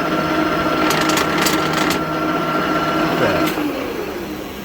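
Leblond Regal engine lathe's geared headstock running at 292 RPM with the power feed engaged: a steady gear whine with some clicking. About three and a half seconds in, the tones fall in pitch and die away as the machine winds down.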